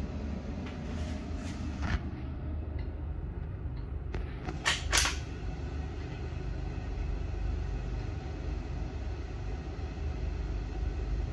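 Light clicks and knocks of a clip-on thermal device being fitted back onto a riflescope by its adapter, then two sharper clicks of handling about five seconds in, over a steady low hum.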